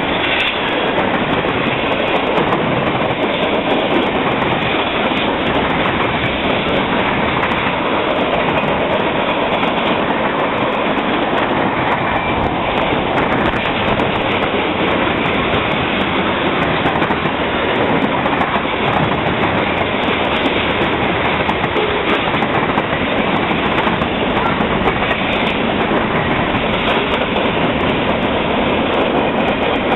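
Freight cars of a passing CSX mixed freight train (tank cars, covered hoppers, boxcars) rolling by close at speed: a loud, steady noise of steel wheels running on the rails.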